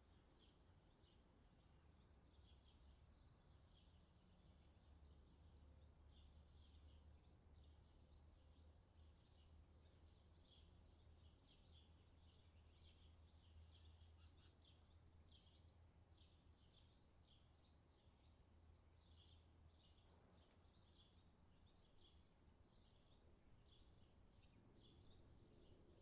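Faint birdsong: many small birds chirping in quick, irregular short notes, over a low steady background rumble.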